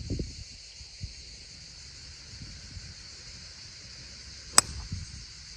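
Steady high outdoor insect buzz with one sharp click about four and a half seconds in, the crack of a golf club striking the ball.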